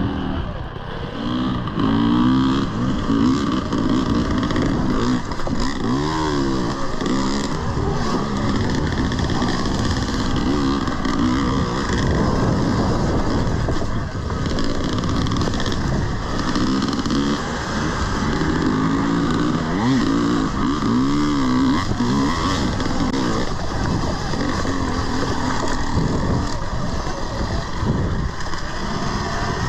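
Two-stroke 300 cc dirt bike engine (2020 TM EN300 TPI) revving up and down on an off-road trail, its pitch rising and falling repeatedly.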